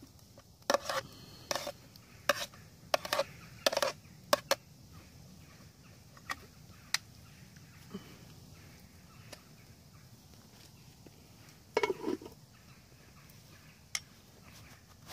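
Utensil scraping and clinking in a camp cooking pot of sausages and gravy, about ten quick scrapes in the first five seconds, then only a few scattered clinks.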